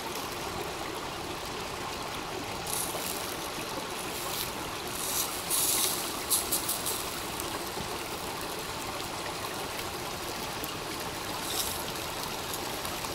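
Small stream running over rocks: a steady rushing trickle of water. A few short, sharper crackles stand out above it in the middle.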